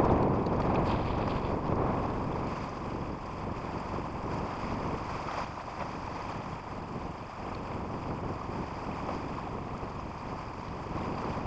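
Wind buffeting the microphone and water rushing past the hull of a sailing yacht under way in a fresh breeze: a steady, even rush with no distinct events.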